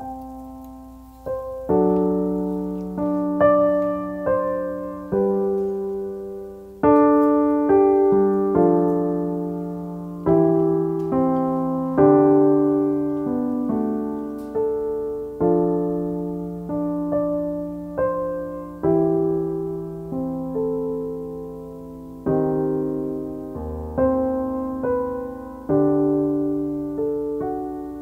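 Slow background piano music: soft chords and single notes, each struck and left to fade before the next.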